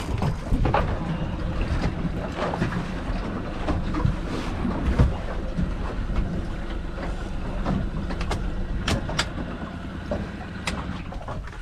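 A small fishing boat's motor running steadily under wind and water noise, with a few sharp clicks in the second half.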